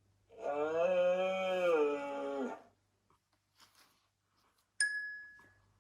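A cow mooing: one long call, about two and a half seconds, its pitch bending gently. Near the end comes a short, bright chime that rings and fades.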